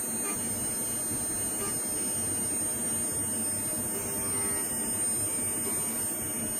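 CNC milling machine spindle running with a steady high-pitched whine while a small, long-reach end mill cuts a thin part of hard tool steel held in a collet chuck.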